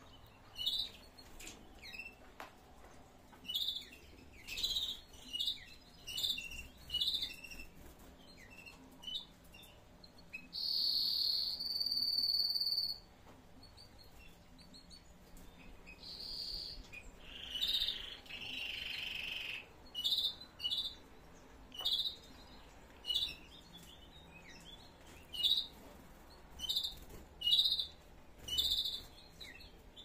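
Canaries calling with short high chirps, spaced about a second apart, with a longer high trill about eleven seconds in and a lower, buzzy trill around eighteen seconds in.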